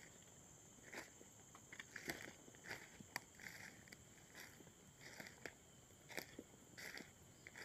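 Faint footsteps crunching on dry forest leaf litter at an easy walking pace, about one step every half to two-thirds of a second, with small twig clicks. A steady high-pitched drone runs underneath.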